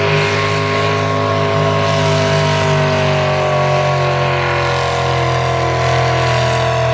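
Pulling truck's engine running hard through open exhaust stacks as it drags a weight-transfer sled, its pitch sagging slowly as the sled loads it down.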